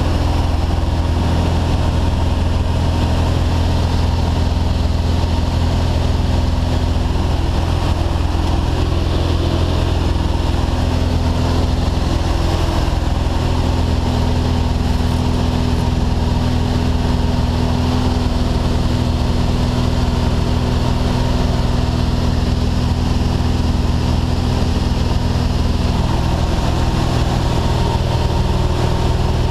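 Steady drone of a light jump plane's piston engine and propeller, heard from inside the cabin in flight, with rushing air noise over it.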